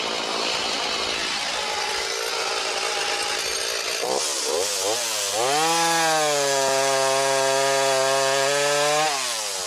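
Two-stroke chainsaw cutting through a large log at full throttle. The engine pitch rises about four seconds in, holds steady, then drops off near the end. The saw is pulling all the way through the cut on its freshly filed bar.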